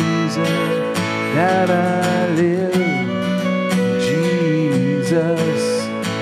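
Worship song with acoustic guitar and a singing voice holding drawn-out, wavering notes over steady chords.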